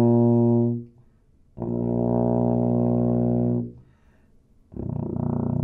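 Tuba playing long, low held notes that step downward: the first note ends just under a second in, a second, lower note is held for about two seconds, and a third, lower and buzzier note begins near the end, heading for the lowest note the player can reach, about three octaves below middle C.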